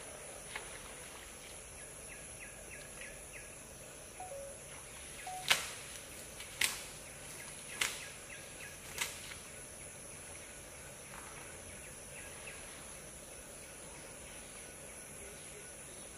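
Four sharp thwacks about a second apart as an Asian elephant tusker beats a trunkful of uprooted grass to knock the soil off the roots, over a steady high hiss.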